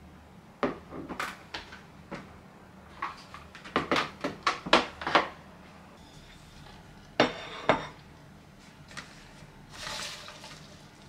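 Kitchenware clattering: a quick run of plastic and crockery knocks and clinks over the first five seconds, then two sharper knocks about seven seconds in, then a soft rustle of salad greens being lifted from a salad spinner near the end.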